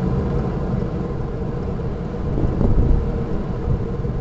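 Worn rear wheel hub bearing of an Audi 80 B3 humming as the raised wheel turns, a steady low drone with a faint steady tone in it, heard close up from under the car. About two and a half seconds in it swells, with a low knock.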